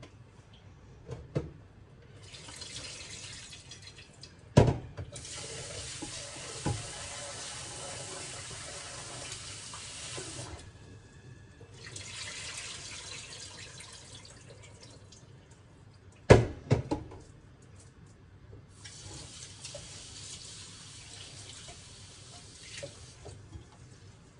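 Kitchen tap running into a stainless steel bowl at the sink in three spells while rice is rinsed. Sharp metallic clanks of the bowl against the sink come about four and a half seconds in and again, loudest, about sixteen seconds in, two or three in quick succession.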